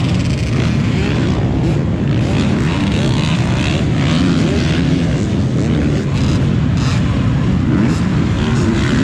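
Off-road motorcycle engines running and revving, their pitch rising and falling, over a steady low rumble.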